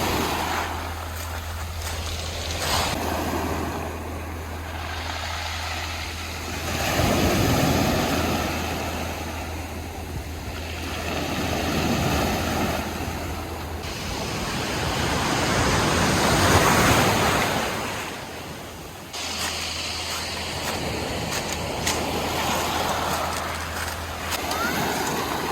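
Sea waves breaking on a beach, the surf swelling and dying away every few seconds. A steady low hum runs under it and cuts off about three-quarters of the way through.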